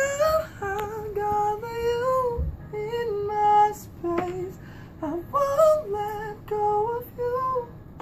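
A man singing high, tenor-range vocal runs with no words picked out. It opens with a rising swoop, then moves through phrases of held notes that bend and slide, with short breaths between them.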